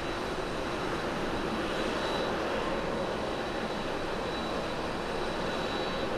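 Boeing 787 Dreamliner's jet engines at takeoff power as it climbs away just after liftoff: a steady, even roar with a thin high whine running through it.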